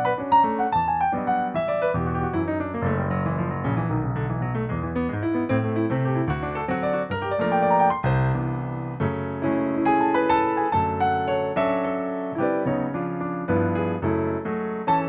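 Yamaha P-515 digital piano played solo: quick runs of notes over low chords, with no pauses.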